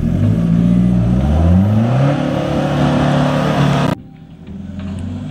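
Toyota Hilux 4WD's engine revving hard under load as it drives through a mud hole, its pitch climbing twice. The sound cuts off abruptly about four seconds in, leaving a much quieter stretch.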